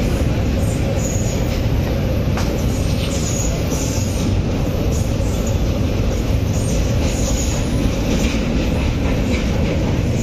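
Passenger train running on the track, a steady loud rumble of wheels and coach heard from inside the carriage, with short high wheel squeals now and then.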